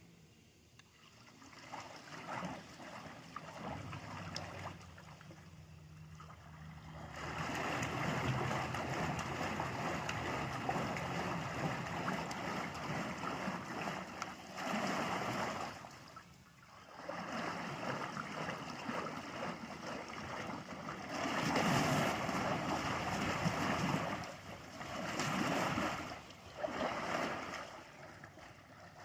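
Remote-controlled paddle pontoon boat's paddle wheels churning water in spells. The churning starts about seven seconds in and breaks off briefly a few times.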